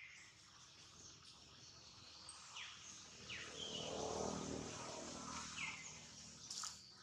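Outdoor ambience: a steady high insect hiss with several short, falling bird chirps, and a low hum that swells up in the middle and fades.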